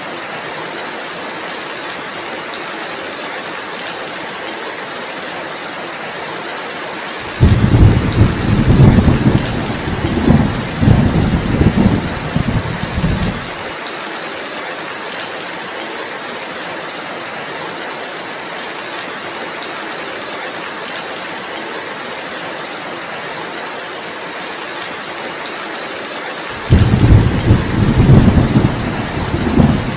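Steady heavy rain hissing, with two loud low rolls of thunder: one about seven seconds in that rumbles for about six seconds and cuts off abruptly, and another starting near the end.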